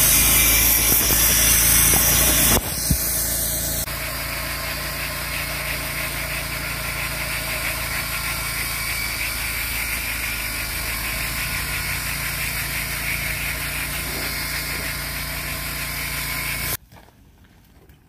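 An engine running steadily at idle, a constant hum. For the first few seconds it sits under louder hiss-like noise, and near the end it cuts off suddenly.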